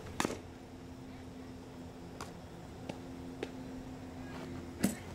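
Softball bat striking tossed softballs: a sharp knock just after the start and a louder crack near the end, with a few faint clicks between, over a steady low hum.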